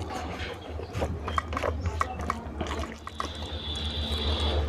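Wet chewing and mouth smacks from eating curry and rice: a string of short, irregular clicks over a steady low hum.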